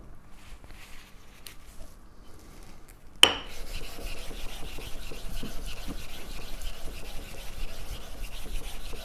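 A sharp click about three seconds in, then steady back-and-forth scrubbing of a flat block on a wet 4000-grit Japanese water stone.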